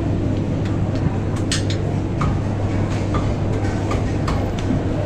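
Steady low hum of hawker stall cooking equipment, with scattered sharp clinks of metal utensils and dishes.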